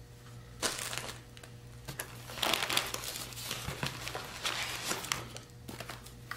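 Rustling and crinkling handling noise in irregular bursts as a coil of rope is set down and a cardboard box is pulled out of a fabric backpack.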